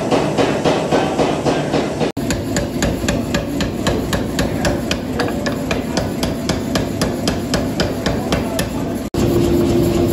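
Power hammer striking hot pattern-welded steel in a rapid, steady rhythm of about four or five blows a second. A steady hum comes in near the end.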